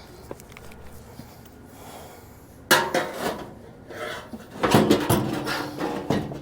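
Hand tools clanking and rattling against metal parts of a furnace blower assembly: a sharp clank about two and a half seconds in, then a longer run of clattering near the end.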